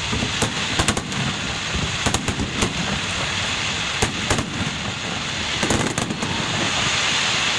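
Fireworks finale barrage: a rapid, irregular string of shell bursts, about a dozen sharp bangs, over a continuous crackling hiss.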